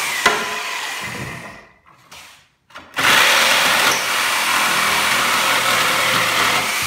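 DeWalt DWE305 corded reciprocating saw cutting through pallet wood and its smaller nails. It winds down about a second and a half in, falls silent for about a second, then starts up again abruptly and runs steadily through the cut.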